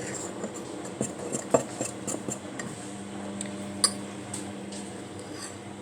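Fork clinking and scraping against a mug while stirring mug-cake batter, with irregular sharp taps.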